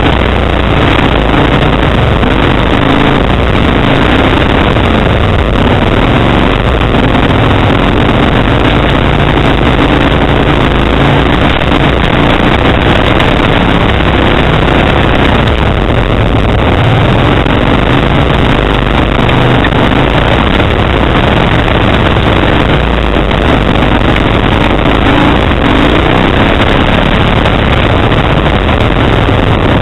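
Kawasaki Brute Force 750 ATV's V-twin engine running loud and steady while riding a trail, its pitch wavering up and down with the throttle.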